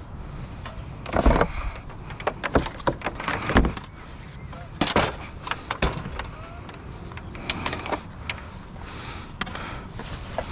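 Irregular knocks and clatter of scrap items being picked up and handled, several sharp knocks a second or so apart with a quieter run of taps near the end.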